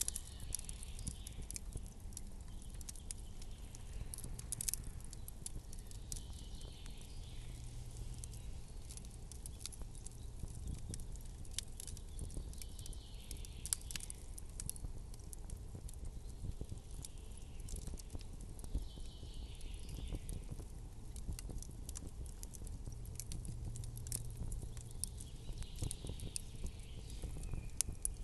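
Campfire crackling: irregular sharp pops and ticks over a low background rumble, with a soft hiss that swells and fades now and then.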